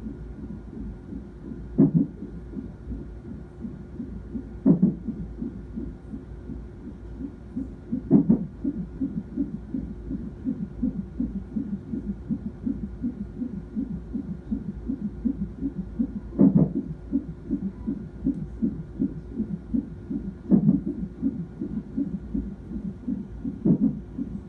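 Fetal heartbeat through an ultrasound Doppler, a fast pulsing at about two and a half beats a second. Six louder thumps come every three to four seconds over the beat: the baby's hiccups.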